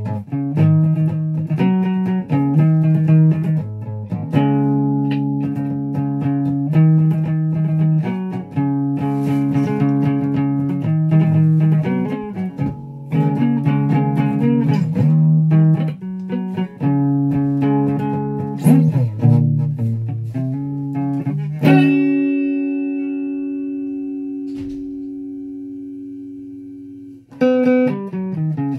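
Flying V electric guitar played through an amp: a riff of repeated chords in short phrases with brief gaps between them. About three-quarters through, one chord is struck and left to ring, fading for about five seconds, before playing starts again near the end.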